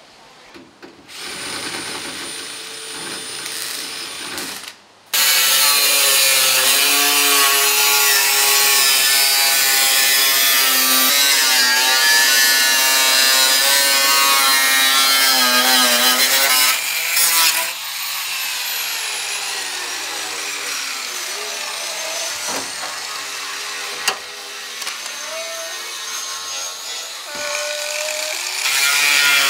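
Angle grinder with a cutting disc slicing through a car's sheet-steel front wing, its whine dipping and rising in pitch as the disc bites into the metal. The cutting is loudest through the first half and runs lighter later, with a few sharp clicks.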